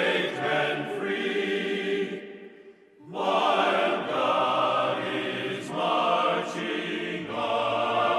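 Background music with choir-like sung voices. It drops away almost to silence about two and a half seconds in, then starts again.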